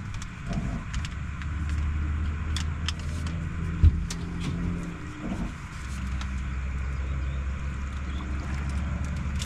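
A steady low motor hum that dips briefly twice, with scattered light clicks and one sharp knock about four seconds in.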